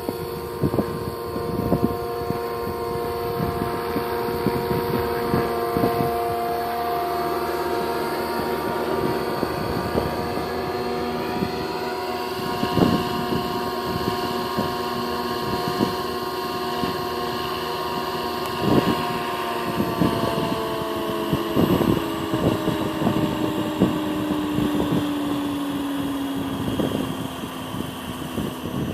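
Scale RC helicopter with an AS350 Écureuil (AStar) body, its drivetrain and rotor whining at a steady pitch that slides lower over the last several seconds as the rotor slows. Irregular thumps of wind hit the microphone throughout.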